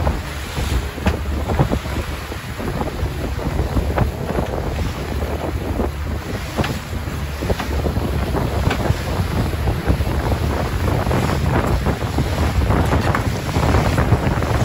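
Outboard motor running with the boat underway through choppy sea, a steady low drone under heavy wind buffeting on the microphone, with irregular slaps and splashes of the hull and spray.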